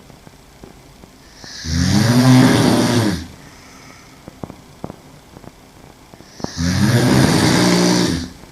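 A woman snoring while asleep on her back: two long, loud snores about five seconds apart, each lasting about a second and a half.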